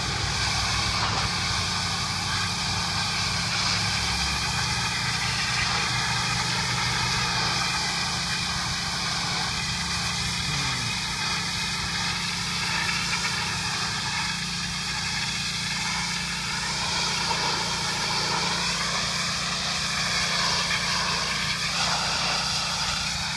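An engine running steadily, with a constant high hiss over it.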